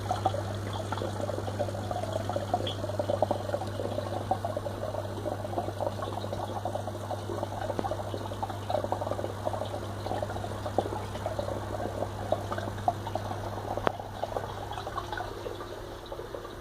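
Fluval FX6 aquarium canister filter running with a steady low buzz under the sound of moving, gurgling water. The owner reports that the filter works perfectly despite the buzz.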